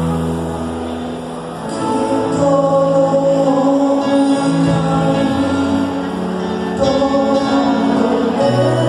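Music of a choir singing in long held notes, the pitch moving every second or so.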